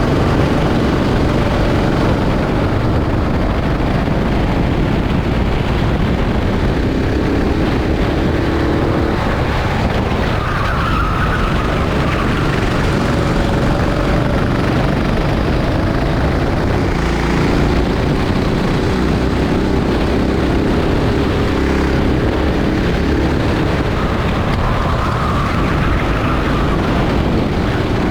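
Rental kart engine running under racing load, its pitch rising and falling with the throttle. A heavy low rumble runs underneath, and the tyres squeal briefly twice, at about ten seconds in and again near the end.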